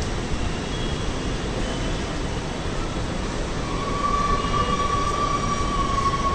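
Metro train running in the station: a steady rumble, joined about four seconds in by a steady high whine.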